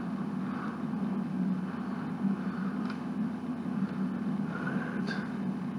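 Steady low hum, with two faint clicks of small Lego pieces being handled, about three and five seconds in.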